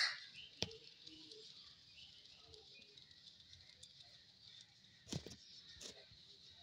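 Vulture preening, its bill working through its back and wing feathers: soft feather rustling, a sharp click about half a second in and two short rustling bursts near the five- and six-second marks.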